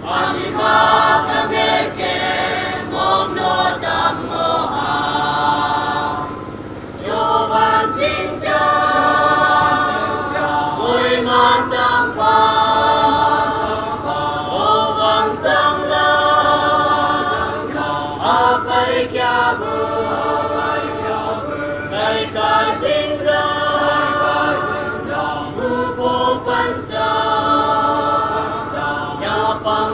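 Mixed church choir of men and women singing together, phrase after phrase of held notes with brief breaths between them.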